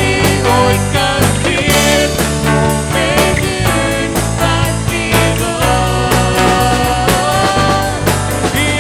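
Afrikaans contemporary worship song played by a rock-style band, with a steady beat and sustained melody lines; no clear singing is picked out here.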